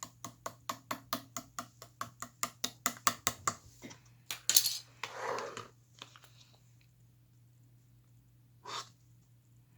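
Slime being squeezed and poked by hand, making a rapid run of sharp clicking pops, about six a second, for three and a half seconds. Then a longer squelch about halfway through, and one more pop near the end.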